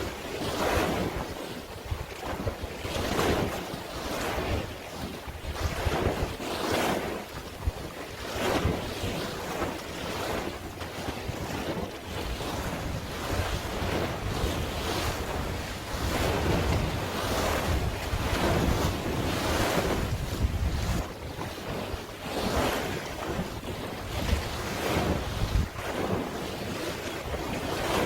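Waves washing in, swelling and falling every second or two, with wind buffeting the microphone as a low rumble.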